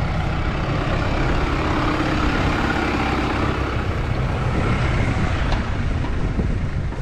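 Diesel engine of a New Holland utility tractor running steadily close by, as it tows a small square baler.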